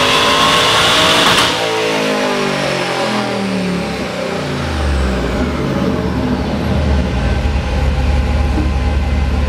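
Procharged 5.3 V8 of a 2003 Chevy Silverado on a chassis dyno, winding up at full throttle with a rising supercharger whine. About a second and a half in it lets off and the pitch falls as the engine and rollers coast down, then it settles into a steady low rumble.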